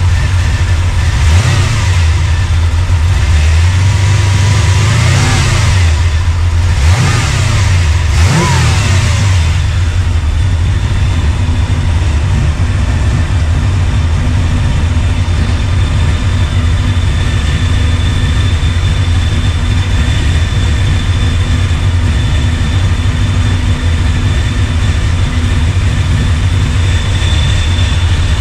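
Chevrolet C10 pickup's engine idling, revved up and back down a few times in quick succession in the first ten seconds, then settling to a steady idle. It is being run to burp trapped air out of the freshly refilled cooling system, with the temperature holding steady.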